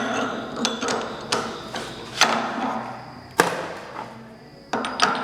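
Irregular metal clinks and knocks of steel tools and parts being handled at the milling machine, about ten in all, the sharpest about two and three and a half seconds in.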